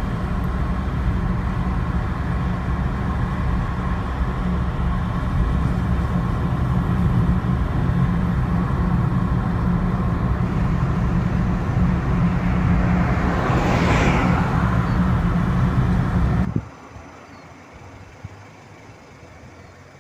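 Steady low rumble of road traffic, with one vehicle swelling past about three quarters of the way through. Near the end it cuts off abruptly to a much quieter background.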